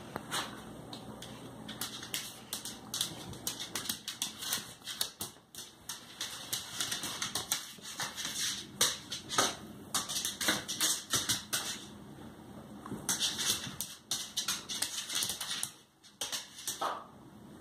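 A dog and a cat play-wrestling on a vinyl floor: rapid clicking and scratching of claws and paws scrabbling on the hard floor, in two long flurries with a short lull about twelve seconds in.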